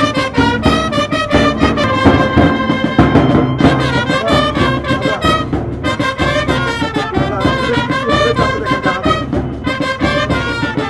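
Brass band music, trumpets and trombones playing a lively tune.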